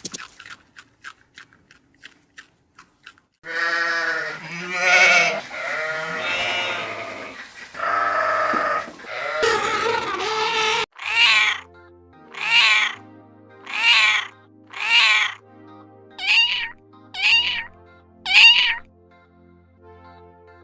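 A cat meowing: long drawn-out calls, then a run of short meows about one a second, over soft background music.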